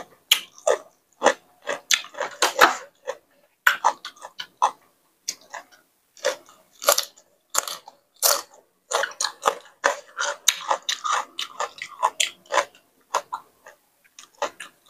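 Close-up eating sounds: a person biting and chewing crunchy papaya salad, with many short irregular crunches and wet chewing.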